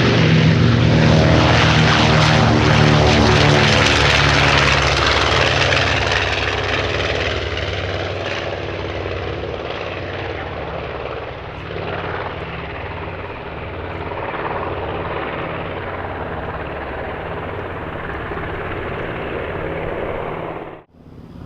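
The B-25J Mitchell's two Wright R-2600 radial engines running, a rough, even drone with propeller noise, loud at first and then gradually fading and holding steady. It breaks off sharply near the end.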